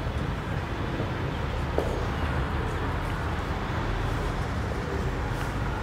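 Steady low rumble and hiss of background noise, with a faint short squeak from a marker on a whiteboard about two seconds in.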